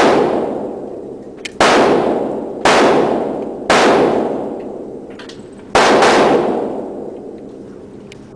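A series of gunshots fired one after another, about a second apart with a two-second pause before the last. Each shot has a long echoing tail.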